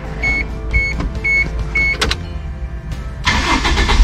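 An electronic warning beep sounds four times, about twice a second, over a faint rumble. Then, in the last second, the Toyota LiteAce truck's engine is cranked on the key and catches into a loud, low running.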